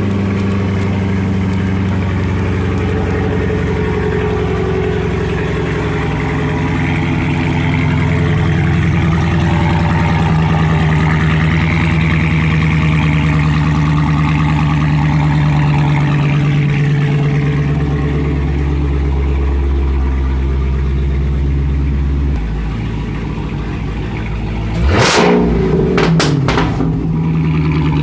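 Dodge Hellcat's supercharged 6.2-litre HEMI V8 running with a steady, shifting drone, then a quick run of several sharp exhaust pops near the end.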